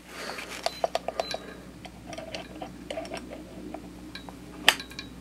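Gloved hands handling a pistol and a digital trigger pull gauge, with small clicks and rustles as the gauge's rod is set on the trigger. About four and a half seconds in comes one sharp click: the Arex Delta M's striker-fired trigger breaking on a dry pull.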